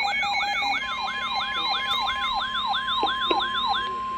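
Weather-alert siren tone: a pitch sweep repeating about three times a second. Under it, a steady two-note tone gives way about a second in to a single steady tone, the warning tone that comes before a National Weather Service severe thunderstorm warning. Both stop near the end.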